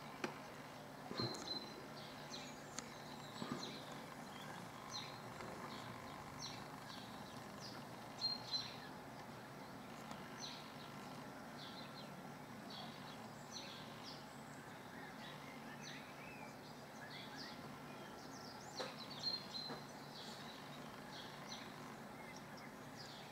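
Small birds chirping in short, high calls every second or so, over a faint steady low drone from a distant Airbus H175 helicopter.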